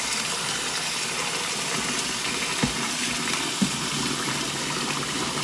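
Kitchen tap running a steady stream of water onto rice in a plastic colander in a stainless steel sink, rinsing the rice. Two light knocks near the middle.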